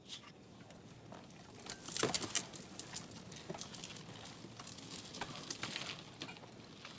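Scattered faint clicks and crackles at irregular intervals over a low hiss, with a small cluster about two seconds in.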